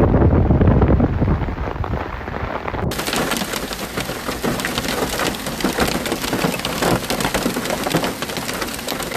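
Wind buffeting the microphone with a low rumble, then about three seconds in an abrupt change to a dense, steady patter of hailstones pelting down on hard surfaces.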